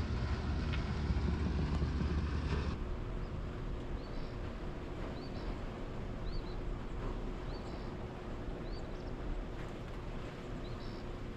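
Outdoor ambience: a steady low rumble, louder for the first few seconds and then dropping off abruptly, with faint short high chirps repeating about once a second.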